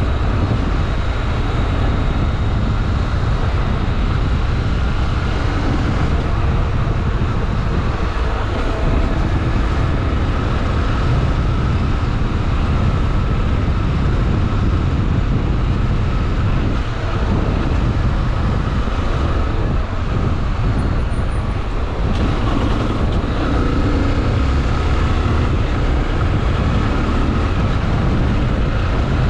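Honda XRE 300 motorcycle's single-cylinder engine running steadily on the move, mixed with wind and road noise.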